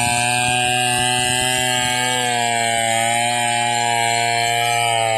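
Two-stroke chainsaw running at high revs under load, ripping lengthwise through a log to cut planks, with a steady, level pitch.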